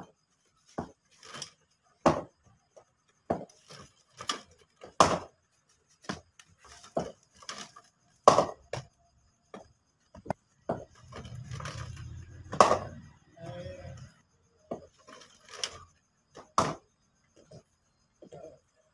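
Irregular sharp knocks and clacks, well over a dozen, from hard cricket balls being bowled, struck and handled in wheelchair cricket practice on concrete. A low rumble runs from about eleven to fourteen seconds in.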